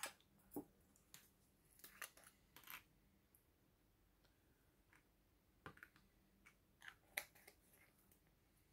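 Faint, irregular small clicks and taps of a diamond-painting stylus picking diamonds from a pot and pressing them onto the canvas, in bunches at the start and again past the middle.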